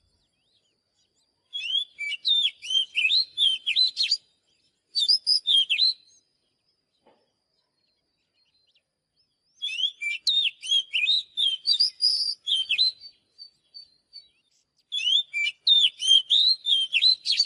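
Oriental magpie-robin singing: bursts of quick, varied whistled notes and warbles, four song phrases separated by short pauses.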